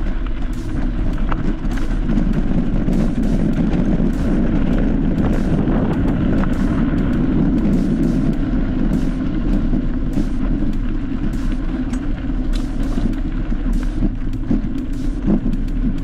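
Vehicle driving over a rough, rocky track: a steady low engine and tyre rumble, with frequent sharp knocks and rattles from stones and the jolting ride.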